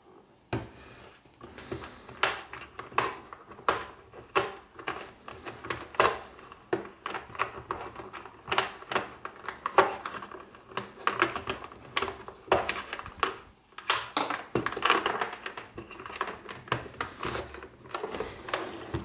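White power cord being pulled and unwound out of the cord-storage compartment in the underside of a MAXXO VM5000 vacuum sealer's plastic housing: a busy, irregular string of clicks, taps and rattles, several a second, as the cable and the handled unit knock against the plastic.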